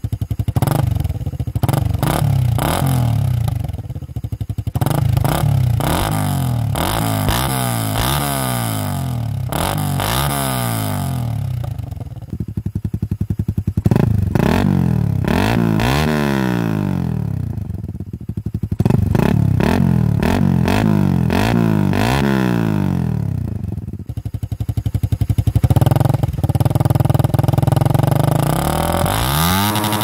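Suzuki Raider R150 Fi's single-cylinder engine running through an aftermarket short muffler, revved again and again: quick blips, then longer revs that climb in pitch and fall back.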